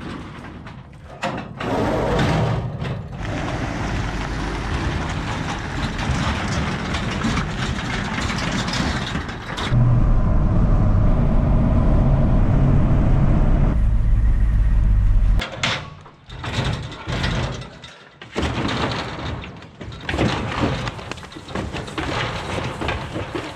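Clattering and knocking of cattle being moved through metal gates and a stock trailer, then a pickup truck's engine and road noise heard from inside the cab as a steady low rumble for about five seconds, cutting off abruptly, followed by more scattered knocks and clatter as calves come off the trailer.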